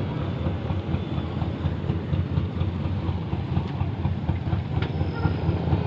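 Truck diesel engine idling steadily with a low rumble.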